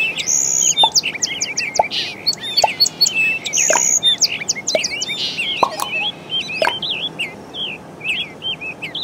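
Many small birds chirping and calling at once, quick rising and falling notes overlapping densely, thinning out a little near the end.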